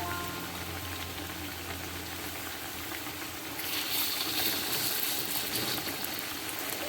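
Steady rain falling, with a louder hiss of water for about two seconds in the middle.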